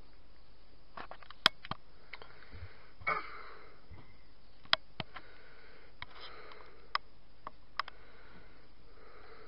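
Sharp plastic clicks and taps as a toddler fiddles with the cap of a plastic drinking bottle, with a short breathy burst about three seconds in, over the steady hiss of a cheap camcorder's built-in microphone.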